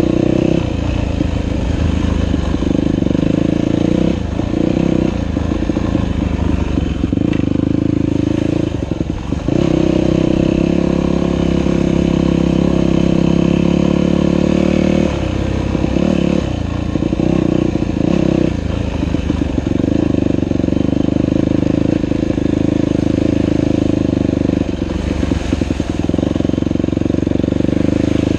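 Dirt bike engine running while riding, its note steady for stretches and dropping and picking up again several times as the throttle is eased off and reopened.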